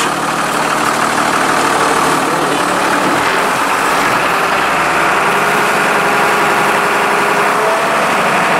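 Engine of the sea tractor running steadily as it drives off across the beach, heard from on board.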